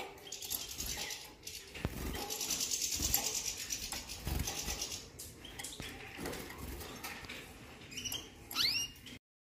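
A fast, high-pitched rattling chatter with a few dull handling bumps. Then a small songbird gives a short sweeping chirp near the end, and the sound cuts off suddenly.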